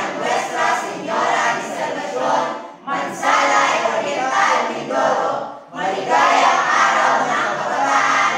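Mixed chorale of men's and women's voices singing together in sung phrases, with short breaths between phrases about three and six seconds in.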